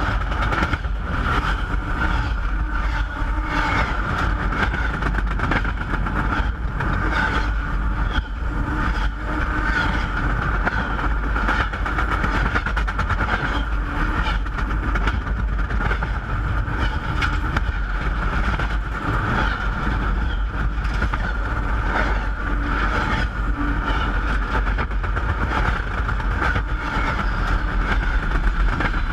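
Train rolling past at very close range over the tracks: a continuous rumble of wheels on rail with rapid clicking clatter and a steady metallic ringing.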